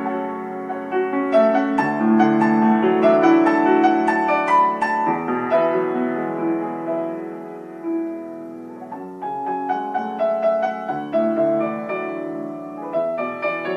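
Background piano music with sustained chords and melody notes, softening briefly about eight seconds in before picking up again.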